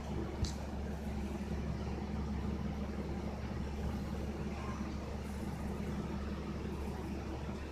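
Steady low background hum or rumble, with one short click about half a second in.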